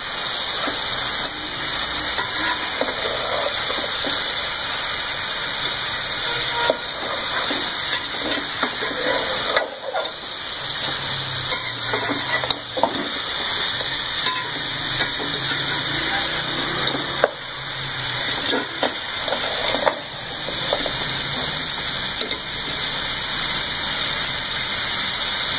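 Beef pieces and ginger-garlic paste frying in oil in a metal pot, a steady sizzle, being browned (bhunai) over a medium flame. A slotted metal spatula stirs and scrapes through the meat, knocking against the pot now and then.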